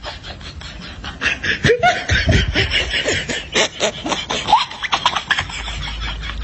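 Laughter and snickering in quick, choppy bursts, growing louder about a second and a half in.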